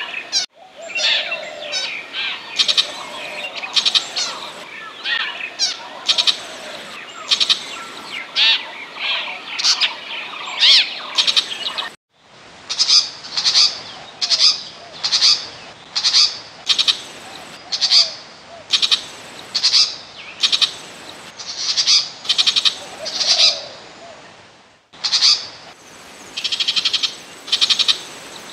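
Burmese shrike decoy-call recording: harsh, chattering shrike calls. A more varied, gliding stretch comes first, then evenly repeated calls about one and a half a second. The sound is cut by brief silences about every twelve seconds where the recording loops.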